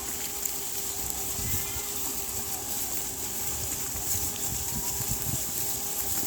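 Sheep flock ambience: one faint, short sheep bleat about a second and a half in, over a steady high hiss and a constant low hum.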